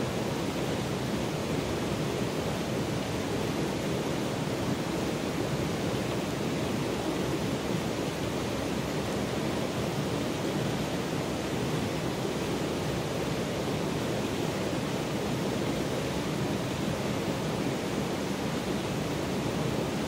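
A shallow creek running over rocks and stones: a steady, even rushing of water.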